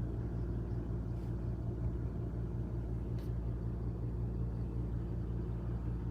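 A steady low rumbling hum with a fast flutter in it, and a few faint clicks about a second in and about three seconds in; it cuts off suddenly just after the end.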